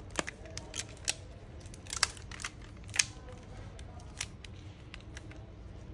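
Rubber bands being stretched and let go around a smartphone by gloved hands, clamping its glued back cover: scattered light clicks and snaps, about two a second at most.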